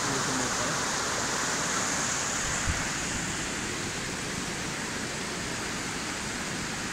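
Steady rush of muddy floodwater from a cloudburst flash flood pouring across the road and down the river. A brief low thump comes about two and a half seconds in.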